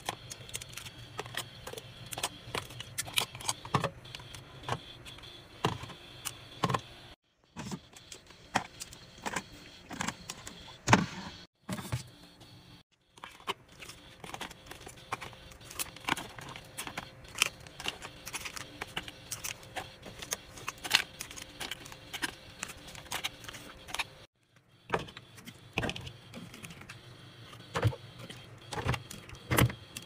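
Restocking handling sounds: plastic food containers, squeeze pouches and bottles clicking, tapping and rustling as they are set into a mini fridge's plastic bins and door shelves, over a faint steady hum. The taps come thick and irregular, broken by a few short silences.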